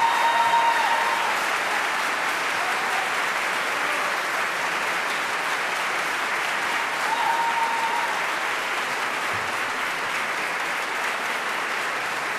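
Concert audience applauding: dense, steady clapping. A brief high tone rises above it twice, at the very start and again about seven seconds in.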